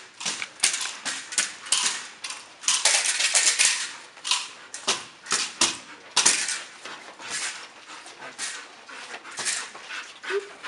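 Irregular sharp slaps and scuffs, a few a second with some longer rasping stretches, as a dog bites and tugs at a decoy's bite suit in protection work.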